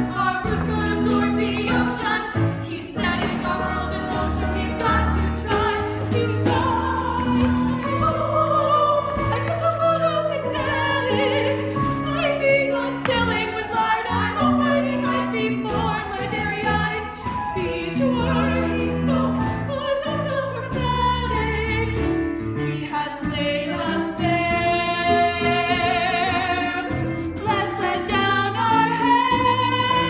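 Women singing a musical-theatre song together over an instrumental accompaniment. About two-thirds of the way through, one voice holds a long note with a wide vibrato.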